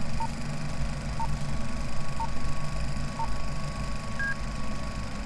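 Film-leader countdown beeps: a short beep once a second, four times, then a higher, slightly longer beep about four seconds in. They sound over a low, steady mechanical rumble like a running film projector.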